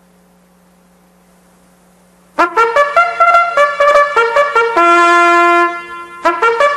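Racecourse starting fanfare played on trumpets, beginning about two and a half seconds in after a faint low hum: a run of short brass notes, a long held chord about halfway, then more quick notes.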